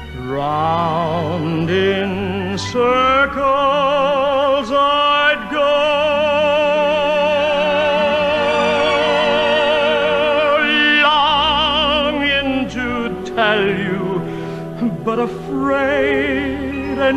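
Music: a singer in operatic style holding long notes with wide vibrato.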